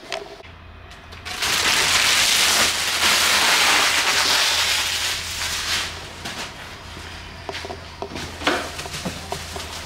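Clear plastic protective wrapping crinkling and rustling as it is handled and crumpled, loud and dense for about four seconds after the first second, then thinning to scattered crackles.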